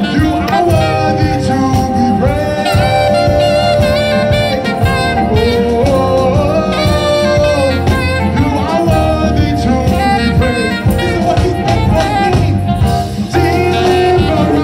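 Live gospel praise-and-worship music: long held melody notes that bend in pitch, over a steady keyboard-led band accompaniment.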